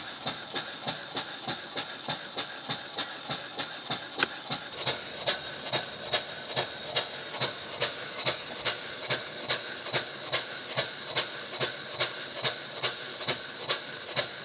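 Scratch-built model beam engine running on compressed air, its exhaust puffing in an even rhythm of about three strokes a second over a steady hiss of air.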